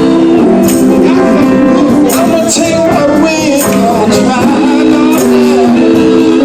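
Gospel music: a male vocal group singing in harmony, with a tambourine shaking steadily.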